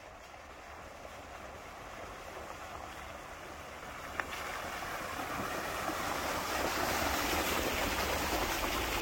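Jeep Gladiator driving along a dirt trail: a steady rush of tyre and road noise over a low rumble, growing louder as it goes, with a single sharp click about four seconds in.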